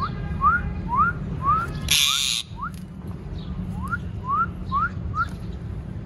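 A string of short whistles, each gliding upward, about two a second, in two runs separated by a pause. A brief harsh, hissing burst comes about two seconds in.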